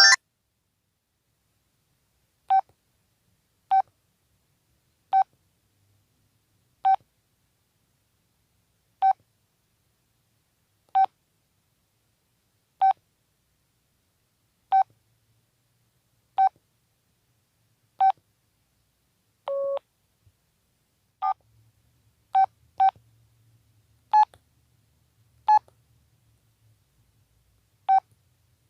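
Audiovox CDM-8900 flip phone's key-press beeps: short single beeps every second or two as its buttons are pressed, with silence between. About two-thirds through comes one longer, lower tone.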